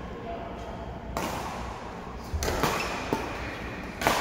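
Badminton rackets striking a shuttlecock during a rally: a few sharp hits about two and a half and three seconds in, then a louder one near the end, over the hall's echoing background.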